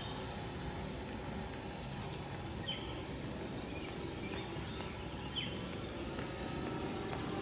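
Outdoor ambience with birds chirping: a short falling call about every two and a half seconds and a few higher twittering notes, over a steady low background rumble.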